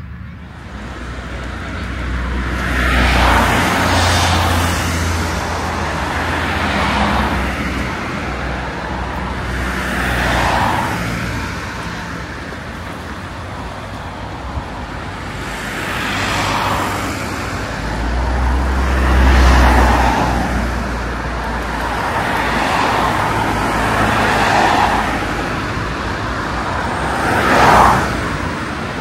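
Road traffic: cars passing one after another every few seconds, each one's tyre noise swelling and fading over a low engine rumble. The last pass, near the end, is the loudest.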